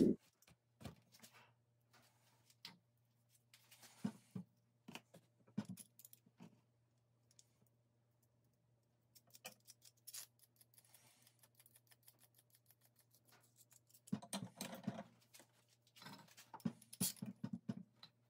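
Black iron pipe fittings clinking and scraping as they are handled and screwed together by hand, in scattered light clicks with quicker runs of clicking near the end.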